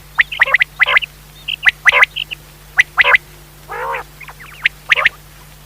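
Common quail calling: clusters of short, sharp notes repeated in quick succession, with a lower, longer call about four seconds in. A steady low hum runs underneath.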